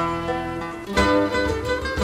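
Background music on plucked string instruments, with notes picked in turn and a fresh strummed chord about a second in.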